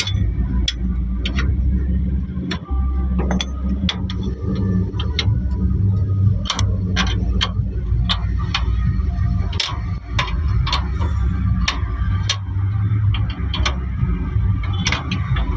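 Sharp metal clicks and clanks, irregular and about once a second, as the wheel nuts are worked loose on a truck wheel, over a steady low hum of an idling engine.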